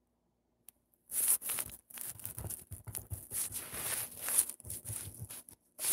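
Irregular rustling and crackling handling noise close to the phone's microphone, starting about a second in.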